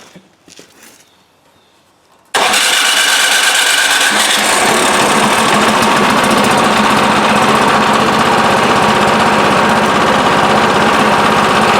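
Craftsman 26-inch snowblower's small single-cylinder engine catching suddenly about two seconds in and running steadily, on choke, after a few faint clicks. It is the no-start engine running again now that its gummed-up carburetor has been cleaned.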